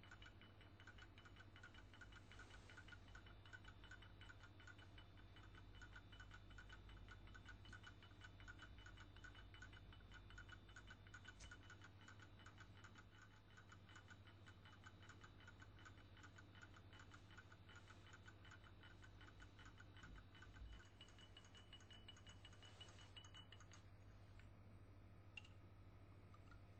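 Faint clock-like ticking, several ticks a second, over a low steady hum.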